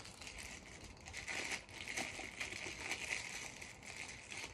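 Plastic packaging crinkling and rustling as it is handled, an irregular crackle that keeps going.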